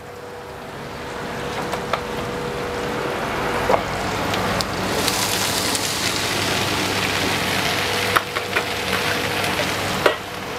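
Parboiled long beans tipped into a hot wok of oil, garlic and onions, setting off a sizzle that grows over the first few seconds and then holds steady. A metal spatula knocks against the wok a few times.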